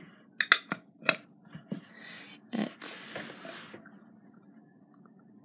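A metal putty tin and its lid being handled and pressed shut: a run of sharp metallic clicks and knocks in the first second or so, the loudest about half a second in, followed by a briefer scratchy rubbing around three seconds in.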